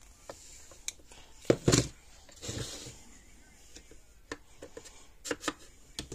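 Scattered sharp clicks and knocks of parts and tools being handled on a workbench, the loudest a quick pair about one and a half seconds in, with a short rustle about a second later and a few lighter clicks near the end.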